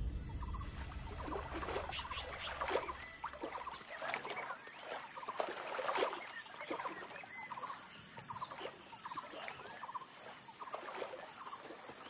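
Many short, repeated bird calls and chatter, with occasional splashes from a sambar deer's hooves wading through shallow water.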